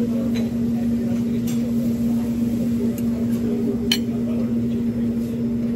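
Steady low hum of restaurant room noise, with a few light clicks of tableware; the sharpest comes about four seconds in.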